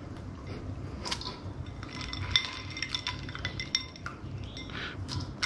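Ice cubes clinking against each other and the sides of a small bowl of ice water as fingers fish out scallion curls, a run of light clinks with brief ringing, busiest in the middle.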